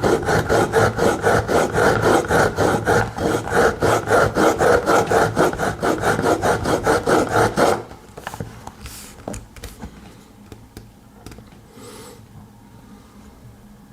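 A pocket knife blade drawn quickly back and forth through an IKEA Aspekt sharpener's two rotating grinding stones, which are wetted with water: a rapid, even rasping, several strokes a second. It stops suddenly about eight seconds in, leaving faint handling sounds.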